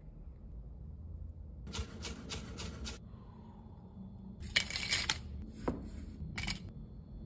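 Short runs of quick clicks and taps from kitchen utensils: metal tongs handling lobster meat, and a chef's knife cutting a lemon on a wooden cutting board.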